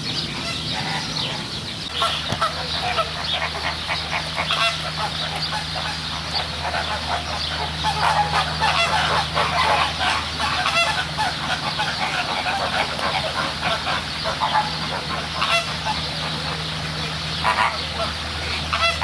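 A flock of flamingos honking and calling, many goose-like honks overlapping continuously, over a steady low hum.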